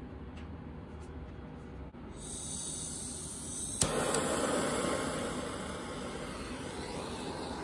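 Handheld butane torch: a gas hiss comes in about two seconds in, a sharp click follows a couple of seconds later, and then the lit flame runs with a louder, steady hiss.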